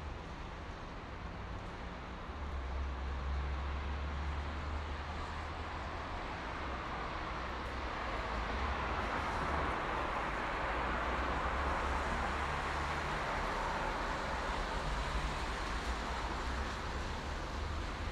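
Highway traffic: steady tyre and engine noise with a low rumble, swelling as a vehicle passes in the middle and easing off towards the end.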